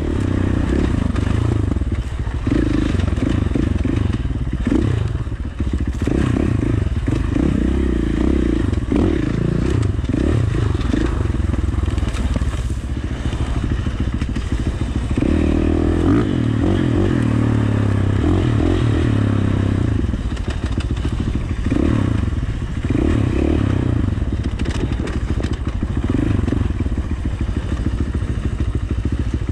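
2019 KTM 450 XC dirt bike's single-cylinder four-stroke engine under way on a dirt trail, revving up and down as the rider works the throttle, close to the microphone. Clatter and knocks from the bike over rough ground come through now and then.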